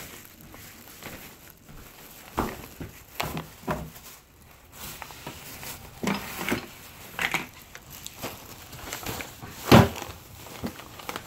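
Rustling and scattered knocks of shopping bags and groceries being handled and set down, with one louder thump near the end.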